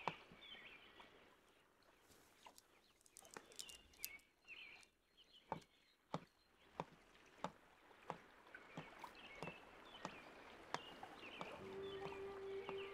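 Faint footsteps on stone paving, uneven at first and then a steady walking pace, with birds chirping. Soft music comes in near the end.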